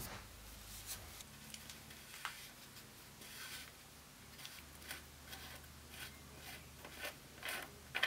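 Faint, irregular scuffing and rubbing as a loosened threaded bottom bracket cup is turned out of the bike frame by hand, with a cloth over it.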